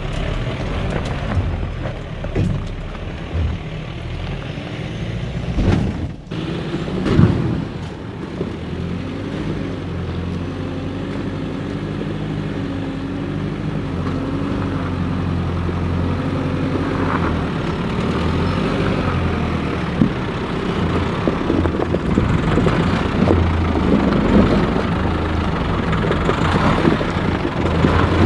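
Nissan Navara 4WD's engine working at low revs as it crawls up a rutted, slippery clay hill, with a few sharp knocks and thuds from the vehicle over rock steps and ruts.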